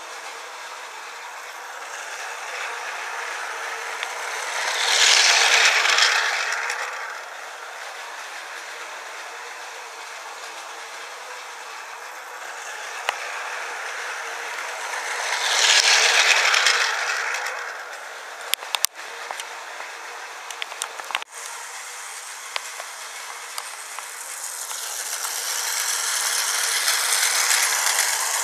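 Battery-powered Tomy Plarail toy high-speed train running on plastic track, its small motor and gears making a whirring rattle. The rattle swells loud as the train passes close, about five seconds in and again at about sixteen seconds, then builds more slowly near the end. A few sharp clicks come between the second and third passes.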